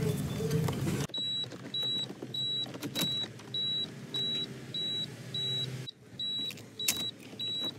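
A car's warning chime beeping steadily, short high beeps about twice a second, starting about a second in. A few sharp clicks of plastic dash trim being handled.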